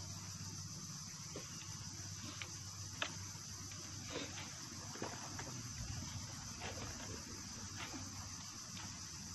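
Steady high-pitched drone of insects, with scattered small clicks and knocks close by, the sharpest about three seconds in.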